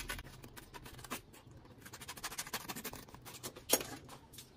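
Scissors cutting through a sheet of sandpaper: faint, dense crackling and scraping, with a couple of sharper clicks.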